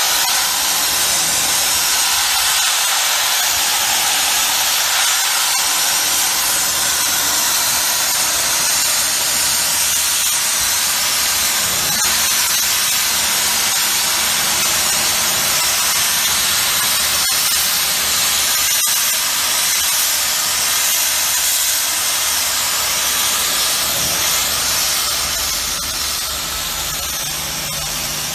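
High-pressure water jet from a pressure-washer lance blasting paint off a steel pipe: a loud, steady hiss of spray on metal. A low hum comes in near the end.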